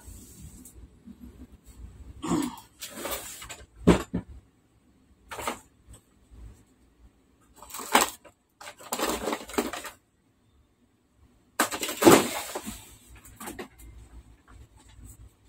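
Irregular clicks, crackles and scraping from hands and small tools working along the edge of an LCD TV panel. The sound comes in separate bursts with sharp clicks, and the loudest crackly stretch is about twelve seconds in.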